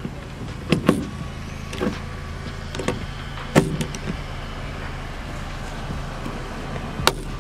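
Hand rivet gun setting pop rivets through a metal roof plate: several sharp clicks and snaps as the handles close and the rivet mandrels break, over a steady low hum.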